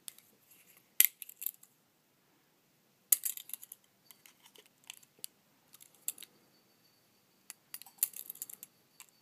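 Small metal tool clicking and scraping against a balisong knife's hardware in irregular clusters as a tape-wrapped screw is driven in tight.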